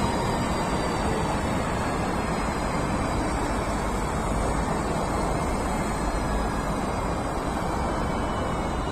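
Lastochka (Siemens Desiro RUS) electric train running past, a steady rumble of wheels on rails with a faint high whine above it.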